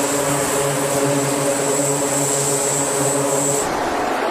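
E-2 Hawkeye's twin turboprop engines running on deck: a steady propeller drone with a regular pulsing beat and a high whine above it. About three and a half seconds in, it cuts abruptly to a broad rushing noise.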